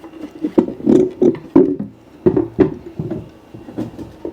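Small wooden folding TV tray being set up and handled: a series of irregular wooden knocks and clatters.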